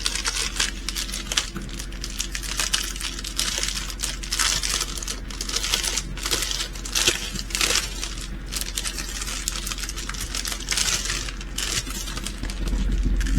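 Crinkling of small plastic bags of resin diamond-painting drills being handled and sorted, an irregular run of crackles.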